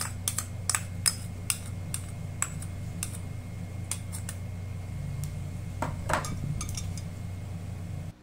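A metal spoon clinking and scraping against bowls as olive oil is scraped from a small bowl into a larger one. The sharp clinks come about twice a second at first and thin out after about three seconds, over a steady low hum.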